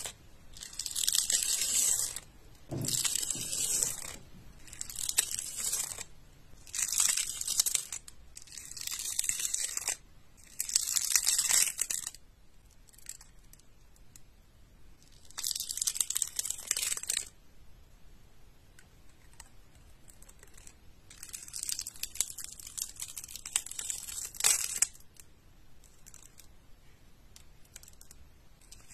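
A thin tool scratching over the glazed inside of small ceramic dishes, in strokes one to two seconds long with pauses between, the strokes coming in runs.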